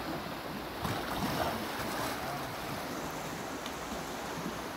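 Shallow river running over stones, with louder splashing about a second in as a wader steps into the current carrying a tub.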